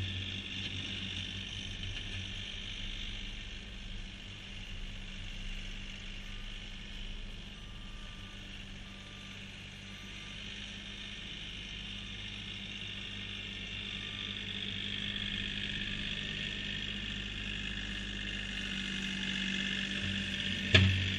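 Compact diesel tractor engine running steadily as the tractor pushes snow, fading as it moves away and growing louder as it comes back near the end. A sharp thump comes shortly before the end.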